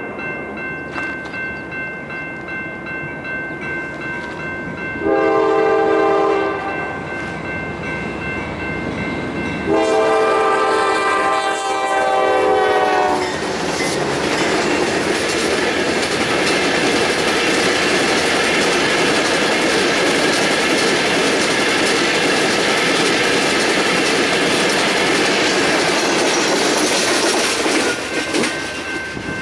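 Freight train locomotive horn sounding two blasts, a short one about five seconds in and a longer one about ten seconds in, each a chord of several steady tones. From about thirteen seconds the train passes close by with a loud, steady rush and the clatter of wheels on rail joints, easing off near the end.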